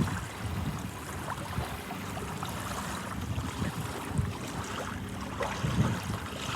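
Ocean surf washing in and out, with wind buffeting the microphone in an uneven low rumble.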